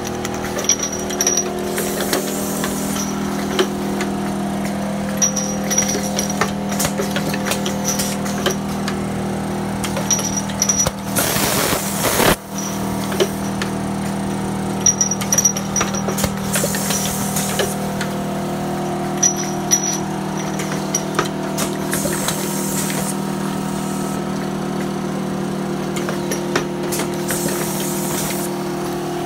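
Automated rotary indexing machine for filling and vacuum-capping blood sample tubes, running. Its motors hum steadily while pneumatic pick-and-place arms click and clack. Short hisses of air come about every five to six seconds, with one louder, longer rush of air about halfway through.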